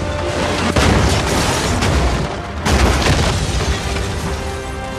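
Film sound effects of a concrete structure collapsing and crashing down on a car: a continuous heavy rumble with two big crashing booms, about a second in and just before the three-second mark, under the film's music score, whose sustained notes rise near the end.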